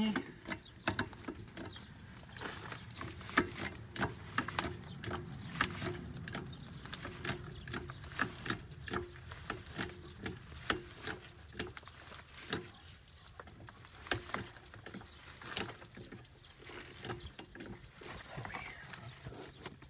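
Jack being worked to raise a mobile home's frame: a long run of irregular clicks and knocks, about one to two a second.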